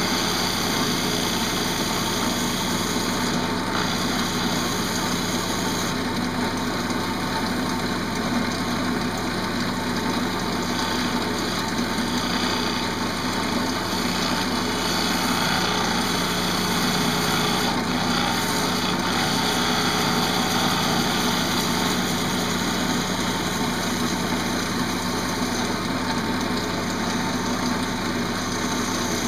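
Wood lathe running steadily while a hollowing gouge cuts the inside of a small green pear-wood bowl: a steady motor hum under the continuous hiss of the cut.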